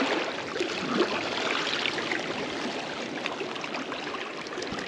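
Seawater washing and trickling around shoreline rocks: a steady, even rush of water.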